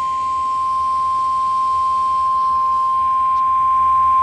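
NOAA Weather Radio warning alarm tone: one steady, unbroken 1050 Hz tone received over a weather radio, with faint hiss beneath. It signals that a warning message, here a severe thunderstorm warning, is about to be read.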